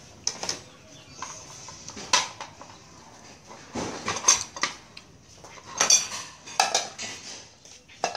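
Metal spoons clinking against ceramic dishes and plates as food is served, a scattered series of short, sharp clinks.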